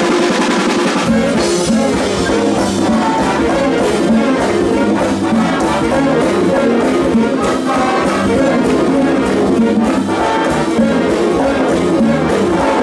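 Big band's brass section and drum kit playing an up-tempo swing passage with a steady beat, with no vocals.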